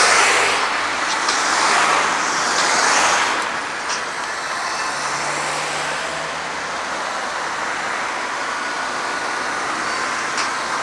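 Road traffic going past: a louder swell of passing vehicles over the first few seconds, then steady traffic and road noise.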